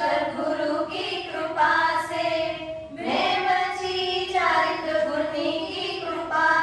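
A high female voice singing a Hindi song line, holding long notes through a microphone.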